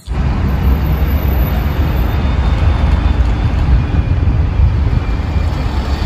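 Double-decker city bus running past close by: a steady, loud, low engine rumble with road noise.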